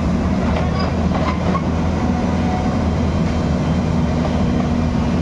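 Cat 320D excavator's diesel engine running steadily, a low even drone, with a few faint metallic clanks about a second in.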